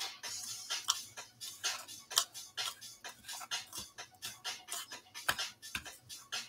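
Irregular light clicks and taps, several a second, from hand food prep: beef croquettes being dipped in beaten egg and rolled in breadcrumbs in plastic bowls, with a spoon in the egg bowl.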